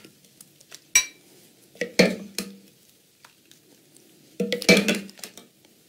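A metal spoon scraping and clinking against a stainless steel saucepan as thick cooked oatmeal is served into a ceramic bowl. There are a few separate clinks and scrapes, about one, two and four and a half seconds in.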